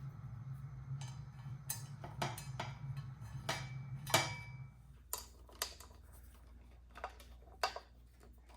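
Irregular light clicks and taps, about a dozen, from small parts being handled while the motorcycle's tail-light bracket is refitted and its wiring reconnected. A low steady hum lies under them and stops about halfway through.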